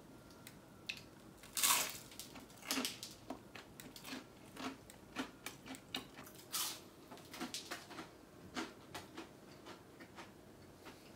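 A person chewing a crunchy fried snack close to a microphone: irregular crisp crunches and mouth clicks, with a couple of louder bites, one about two seconds in and one about two-thirds of the way through.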